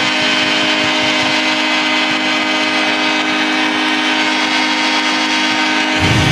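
Hockey arena goal horn sounding one long, steady blast of several tones at once. Right at the end a goal song with a heavy bass beat kicks in.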